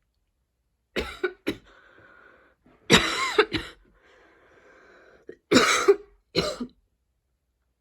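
A woman's painful, choky coughing attack: three bouts of hard, sharp coughs, the first a quick run of three, the loudest in the middle, with strained breaths drawn in between.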